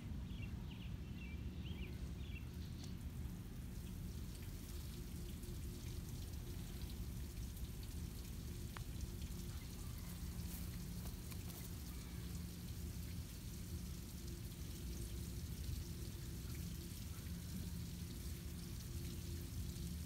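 Faint steady splashing of water from a garden hose running through flush muffs on the outboard's lower unit, over a low steady rumble; the engine is not yet running.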